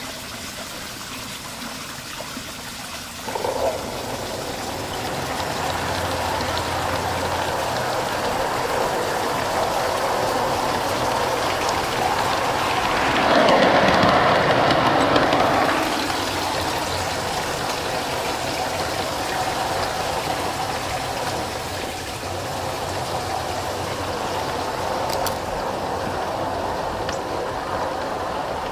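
G-scale model train running on garden track, heard from on board one of its cars: a steady rolling rumble of wheels on the rails. It steps up about three seconds in and grows loudest for a few seconds around the middle, while the train passes through a tunnel.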